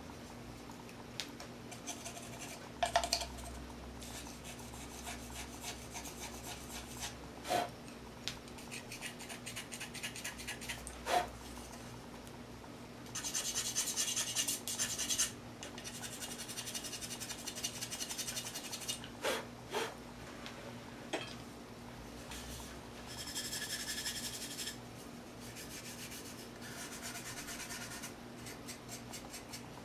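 Scraping and rubbing on an unfired greenware clay mug as it is cleaned by hand: stretches of rapid, fine scratching strokes with pauses between them and a few light clicks.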